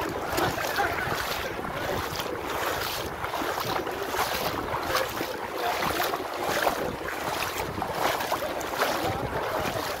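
Sea water sloshing and splashing around legs wading through it, surging about once a second with each stride, with wind buffeting the microphone.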